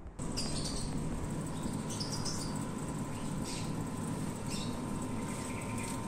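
Daikin mini-split outdoor condensing unit (R410A) running. Its compressor and fan make a steady low hum with a faint, thin whine, beginning abruptly a moment in. Short high chirps come and go over it.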